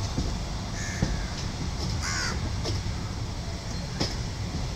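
Train running, heard from aboard: a steady low rumble with faint clicks from the wheels, and two short harsh cries, about one and two seconds in.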